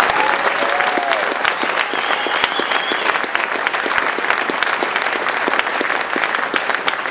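Audience applauding steadily, a dense spatter of many hands clapping.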